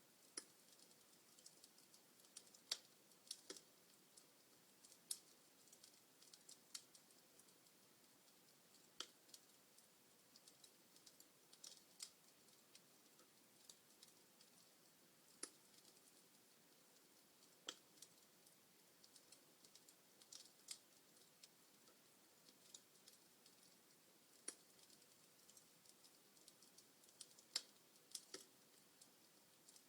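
Log fire crackling: irregular sharp pops and snaps, a few loud ones among many small ticks, over a faint hiss.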